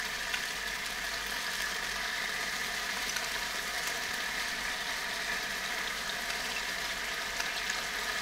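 Chicken and onion pieces frying in a pan, a steady even sizzle, as a soy-and-ketchup sauce is spooned over them.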